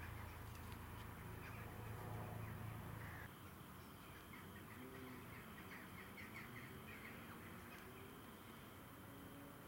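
Faint outdoor ambience with distant birds calling, some in quick repeated chirps. A low steady hum runs under the first few seconds, then stops.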